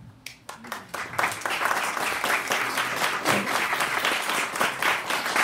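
Applause: a few scattered claps that quickly build into steady clapping.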